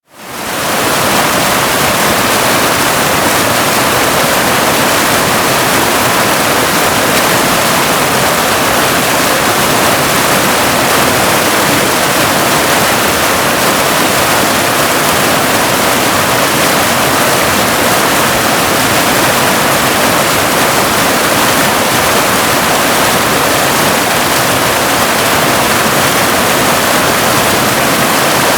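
Waterfall: a steady, even rush of falling water, bright, with little low rumble. It comes back in from a brief dropout at the very start.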